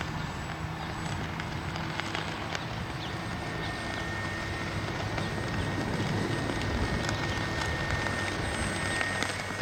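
Radio-controlled model airplane's motor and propeller droning steadily in flight, with a thin steady whine above a low hum.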